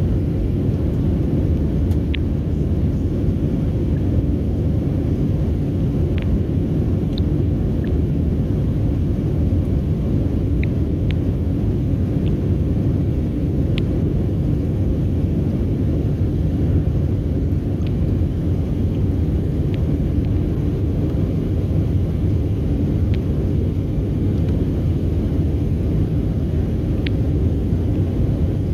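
Steady low roar of a Boeing 737's jet engines and rushing airflow heard inside the cabin as the airliner climbs after takeoff.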